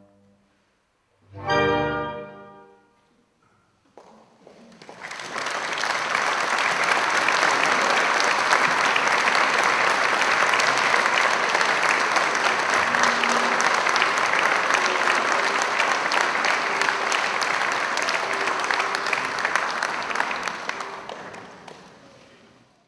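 A clarinet choir, bass clarinets included, sounds one short final chord about a second and a half in. About two seconds later the audience starts applauding, and the applause holds steady until it fades out near the end.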